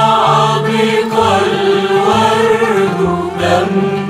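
Arabic Christian hymn: a voice carries a long melody that bends up and down, over instrumental accompaniment whose bass steps from note to note.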